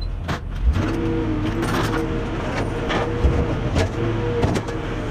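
A utility trailer's metal mesh ramp being lowered, with several sharp metal clanks about a second apart, over the steady hum of machinery running in a scrapyard.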